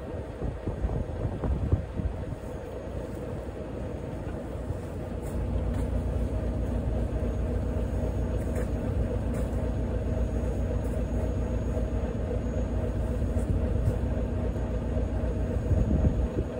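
Diesel truck engine idling with a steady low rumble and hum; it gets a little louder about five seconds in. A few short thumps come through near the start and near the end.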